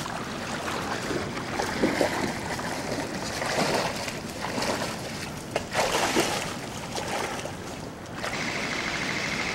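Splashing of boots wading through a shallow woodland creek, in a few louder surges of steps. A steady high buzz sets in near the end.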